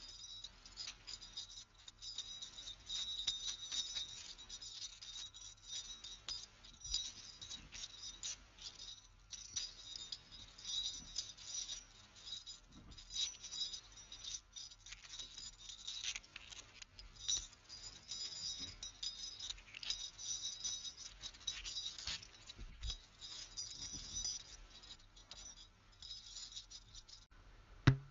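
Continuous irregular jingling and clinking of small hard objects, like keys or glass, ending with one sharp knock just before the sound cuts off.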